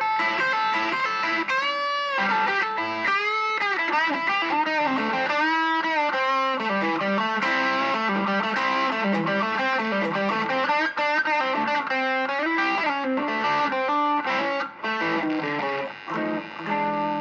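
A home-built Les Paul-style electric guitar with a one-piece sapele mahogany body, swamp ash top and cheap €30 pickups, played as a continuous lead line. Several notes bend up and down in pitch, and the playing breaks into short phrases near the end.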